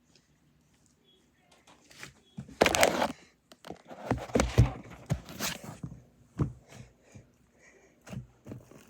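Slime being squished and stretched by hand, giving irregular wet clicks and pops. It starts about two seconds in, after a near-silent moment.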